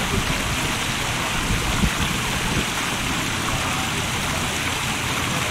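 Steady rushing of water along the bay shore, with uneven low rumbles underneath.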